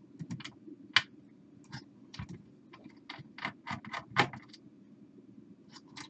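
Irregular light clicks and taps from a screwdriver and fingers working out a chassis screw from a CD player's metal frame, with a faint steady hum underneath.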